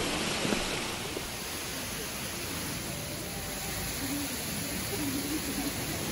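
Steady rushing noise of the Manai Falls waterfall pouring into the gorge's river.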